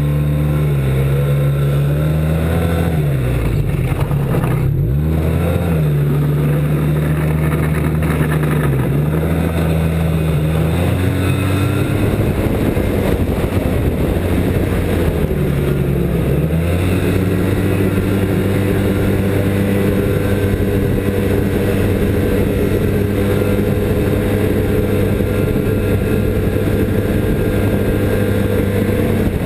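Snowmobile engine running under way, its pitch dipping and climbing back several times as the throttle is eased off and opened again, then holding steady at speed for the second half.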